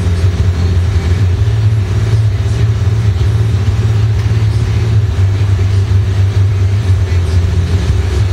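Glassblower's bench torch burning steadily, its flame giving a constant low rumble with a faint hiss above it as borosilicate tubing is heated in it.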